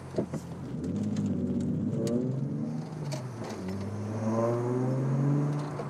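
Volkswagen Corrado's VR6 engine accelerating, heard from inside the cabin: the engine note rises, drops back at a gear change about three seconds in, then rises again.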